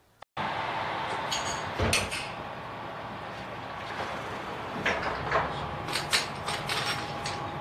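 Diesel engines of a JR Shikoku 2000 series express railcar (Komatsu SA6D125H) idling, heard from inside the car's vestibule, cutting in sharply after a moment of silence. Several sharp clicks and knocks sound over the steady hum, about two seconds in and again around five and six seconds.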